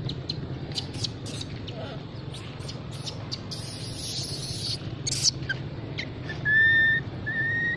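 Baby long-tailed macaque crying: two high, thin, steady cries near the end, the second rising slightly. Before them come scattered light clicks and a brief rustling hiss, over a low steady hum.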